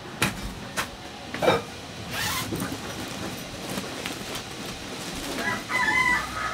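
A nylon duffel bag and clothes being handled: rustling with a few sharp clicks and knocks, and a short rasp about two seconds in. Near the end a pitched sound with several tones comes in.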